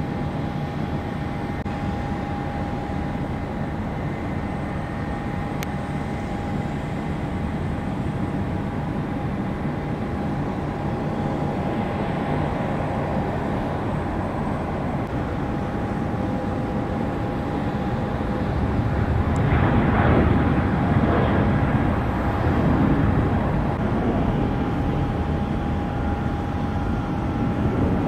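Jet airliner engines running at taxi power: a steady rushing noise with a constant high whine, swelling louder for a few seconds about two-thirds of the way through.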